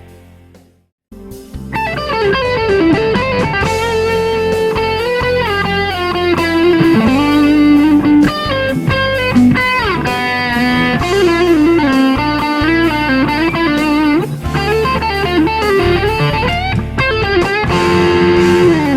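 Electric guitar, likely a Fender Stratocaster, playing a lead melody with string bends and slides over a steady low accompaniment. It starts after a brief gap about a second in and ends with a note sliding down.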